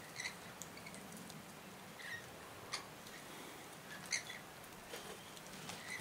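Birds around a feeder: a few short, faint chirps and several sharp clicks scattered over a low steady outdoor hiss.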